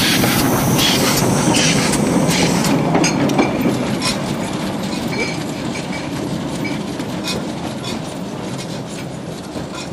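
Small 1895 Krauss narrow-gauge steam locomotive pulling away: steam hissing and exhaust beats with the clatter of its wheels on the rails, fading steadily as it draws off.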